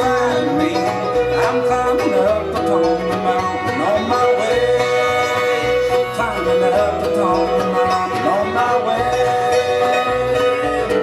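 Bluegrass band playing an instrumental break: banjo picking over guitar rhythm, with long held notes bending in pitch above.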